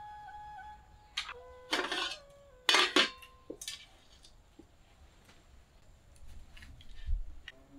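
Metal cooking pot and the metal plate covering it clanking as they are handled with cloths: three sharp clanks with a brief metallic ring between about one and three seconds in, the loudest near three seconds. Lighter knocks follow, then a dull thump near the end as the pot is set down on the mud floor.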